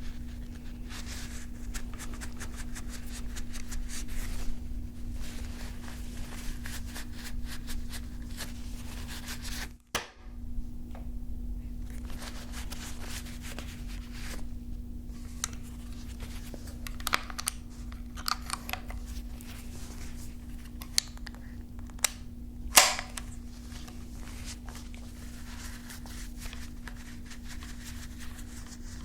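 Ruger 10/22 semi-automatic .22 rifle being handled: scattered metallic clicks and clacks from its action, with a cluster of sharper clicks in the second half and the loudest single click about three-quarters of the way through. A steady low hum runs underneath, and the sound drops out briefly about a third of the way in.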